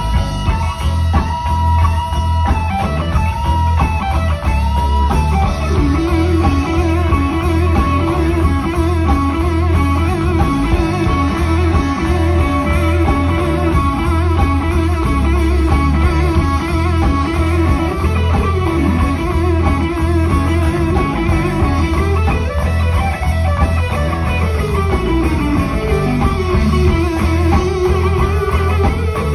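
Live electric blues band: an electric guitar plays a lead line with bent, gliding notes over bass and drums.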